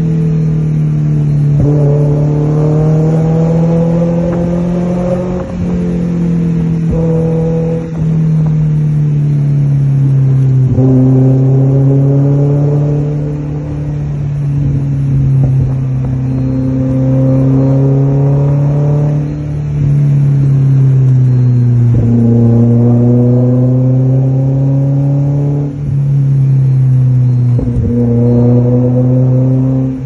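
Lotus Elise 1.6's four-cylinder engine heard from inside the cabin, pulling hard through the gears: the engine note climbs in each gear, then dips briefly at each of several gear changes before climbing again.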